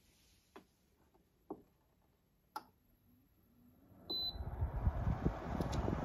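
MEACO dehumidifier switching on: three light clicks, then a single short high beep about four seconds in as the power button is pressed, after which its fan starts up and runs with a steady rush of air.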